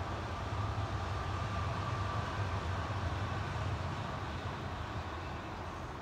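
Steady low rumble of a passing vehicle with a faint whine that swells over the first few seconds and then fades.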